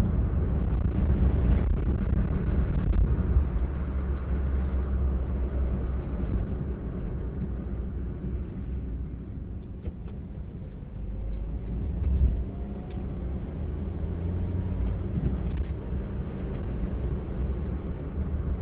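Road and engine noise inside a moving car's cabin: a steady low rumble that eases a little about halfway through as the car slows, then picks up again.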